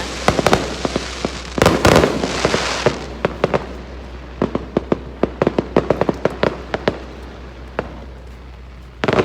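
Fireworks display going off: a rapid string of sharp pops and crackles from the small warm-up shells, with a heavier burst about two seconds in and another near the end.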